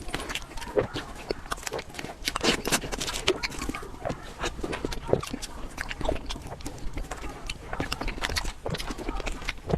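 Close-miked eating sounds of creamy fruit cake: wet chewing, lip-smacking and squishing at an uneven pace.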